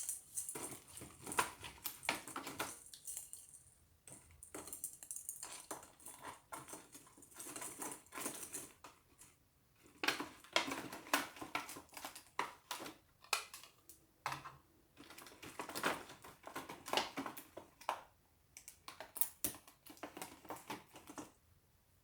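Small objects being handled and set down: runs of light clicks, taps and rustling in clusters, with short pauses between them.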